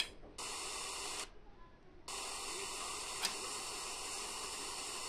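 Retekess V115 pocket radio's speaker hissing with FM static between stations while it is tuned. A click at the start, a short burst of hiss, a brief gap, then a longer run of steady hiss with one sharp click partway through.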